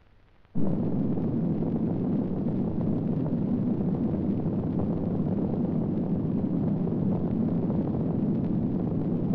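A deep, steady rumble that starts suddenly about half a second in and holds level: a film sound effect standing for the blast of a nuclear explosion.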